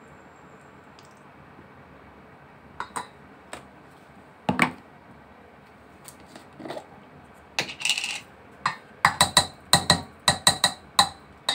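A metal spoon knocking and clinking against a stainless steel mixing bowl as ground meat is mixed in it: a few scattered knocks, then a quick run of ringing clinks, about three a second, near the end.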